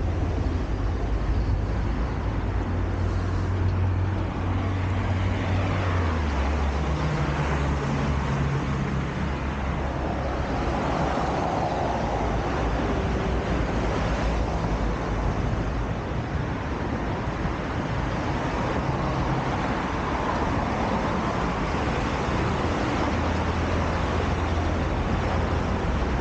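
Road traffic noise: passing vehicles with a steady low engine rumble.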